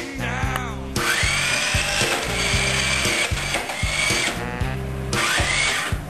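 Background music with a steady, repeating bass beat. Over it, a toy remote control car's small electric motor gives a high whine that rises in pitch about a second in and holds, then rises again near the end.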